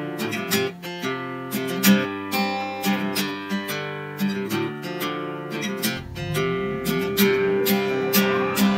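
Intro theme music: plucked and strummed guitar chords with frequent sharp note attacks.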